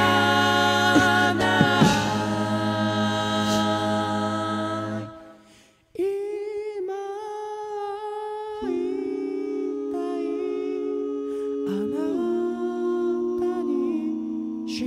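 A cappella vocal group singing a slow ballad into microphones, a bass voice under held chords and a lead line. About five seconds in the voices fade out for a moment, then come back softly as hummed chords, without the bass, held and moving to new chords every few seconds.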